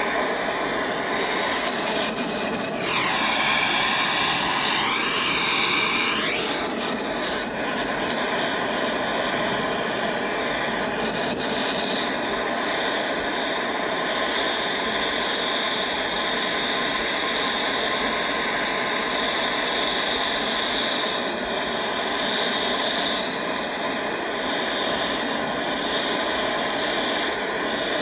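Handheld gas torch flame hissing steadily as it heats sterling silver in a crucible, with a brief swooping change in tone a few seconds in.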